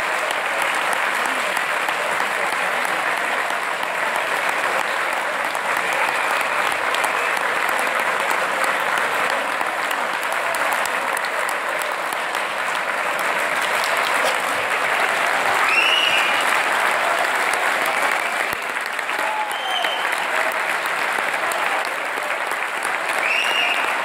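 A large crowd applauding steadily, with a few shouted cheers or whoops cutting through it about two-thirds of the way in and again near the end.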